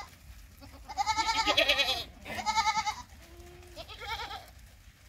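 Sirohi goats bleating: about four calls from different goats, each with a quavering pitch. The loudest and longest comes about a second in, and the others are shorter.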